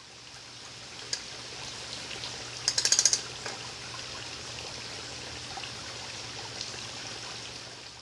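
Steady trickling, water-like hiss with a faint low hum beneath, and a quick cluster of sharp high clicks about three seconds in.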